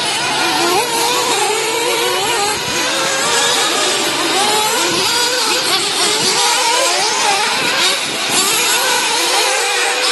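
Several 1/8-scale nitro RC truggies' small two-stroke glow engines racing at once, their high buzzing pitches rising and falling as the cars throttle up and back off around the track.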